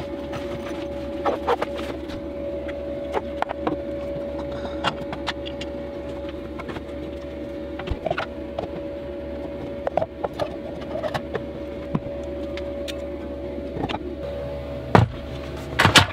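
A steady hum with a faint held whine runs throughout, under scattered light clicks and knocks of things being handled on a wooden counter. A few louder clunks come near the end as a stainless Instant Pot is handled.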